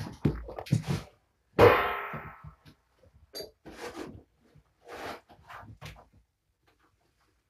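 A loud clang about one and a half seconds in, ringing and fading for nearly a second, as playing kittens knock into something. Around it are scattered light knocks and scuffles from the kittens scampering over toys on the floor.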